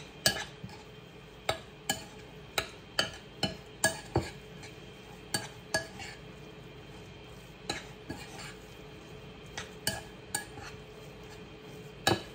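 Metal spoon stirring a thick ricotta and mozzarella mixture in a ceramic bowl. The spoon clinks and scrapes against the bowl's sides in irregular sharp knocks, about one or two a second.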